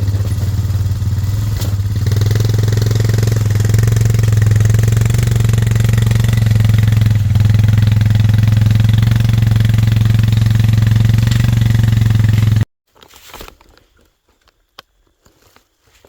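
Four-wheeler (ATV) engine running steadily close by, rising a little in pitch a couple of seconds in, then cutting off suddenly near the end.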